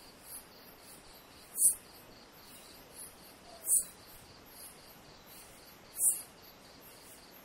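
Night insects outdoors: a loud, very high, shrill call repeating about every two seconds, three times, over a faint steady chirping of crickets.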